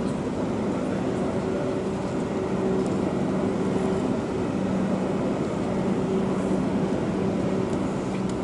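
Motor barge's diesel engine running steadily as the barge moves slowly ahead: a constant low hum with a fixed tone.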